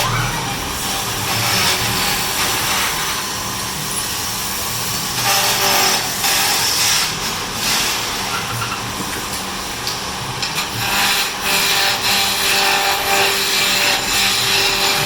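Wood lathe running, with a turning tool cutting into the spinning wood: a steady scraping hiss over the motor's hum that swells and eases as the cut goes on.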